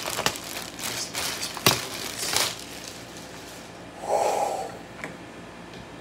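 Plastic wrapping crinkling and rustling in irregular bursts as it is pulled off a stainless-steel toaster, with one sharp click about a second and a half in.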